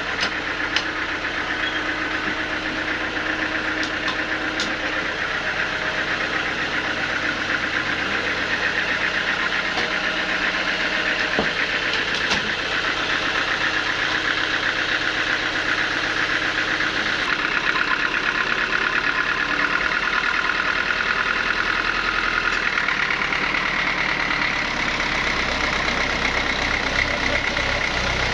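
Sawmill machinery running steadily, with a continuous engine-like hum; its tone changes about 17 seconds in and again about 23 seconds in.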